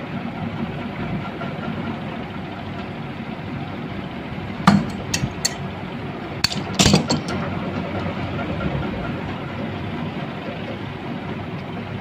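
Steel scissors clicking and scraping against the thin enamelled copper winding leads of a fan motor stator: a handful of sharp clicks around the middle, over steady background noise.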